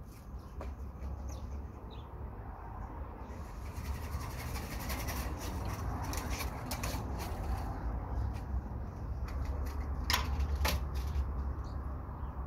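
Rustling and handling noises with many small clicks, densest in the middle, over a steady low rumble; two sharp clicks about ten seconds in.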